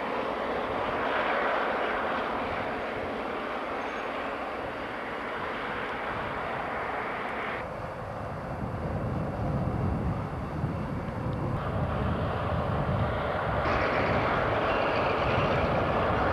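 A diesel-powered passenger train running past: steady rolling and engine noise. The sound shifts abruptly about eight seconds in to a deeper rumble. Near the end it shifts again and grows louder as the EMD FP7A diesel locomotive, with its 16-cylinder 567 engine, runs close by.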